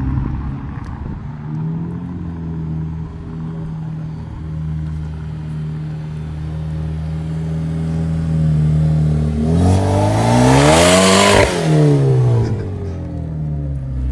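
2013 Hyundai Genesis Coupe 2.0T turbocharged four-cylinder with a straight-piped exhaust (catalytic converters and muffler removed) driving by: a steady exhaust drone as it approaches, then a loud pass about ten seconds in as the pitch climbs and drops away once the car has gone by.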